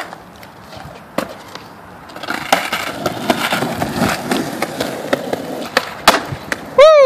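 Skateboard rolling over cracked concrete slabs, its wheels ticking at the joints, with a few sharp board clacks; about six seconds in, a sharp crack of the tail popping for a trick. Near the end, a short, loud human cry that falls in pitch.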